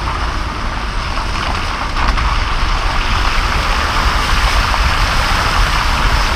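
A car's tyres ploughing through flood water on a street, a steady rush and splash of water thrown up close to the microphone, over a low rumble.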